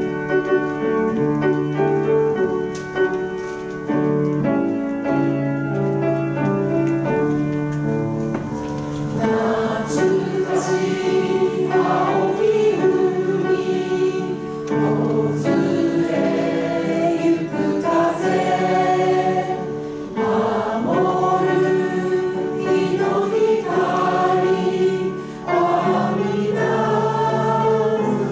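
A roomful of people sing a Japanese song together in unison, with piano accompaniment. The piano plays alone for the first several seconds, and the voices come in about nine seconds in.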